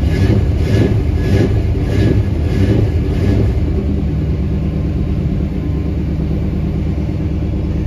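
GMC van's throttle-body-injected engine idling just after starting, heard from inside the cab, running on a computer swapped in from another truck. It pulses about one and a half times a second for the first three seconds, then settles into a steady fast idle, the normal high idle of a cold engine.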